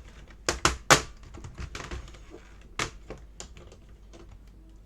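Irregular sharp clicks and taps of small hard parts being handled by hand, several close together in the first second (the loudest about a second in) and a few more around three seconds in.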